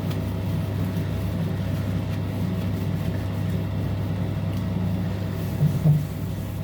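A steady low hum, as from a motor, with a brief louder bump a little before the end.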